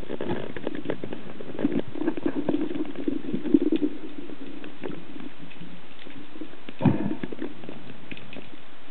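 Muffled underwater sound: a steady hiss with scattered small clicks and knocks, a low rushing swell from about two to four seconds in, and one heavier knock about seven seconds in.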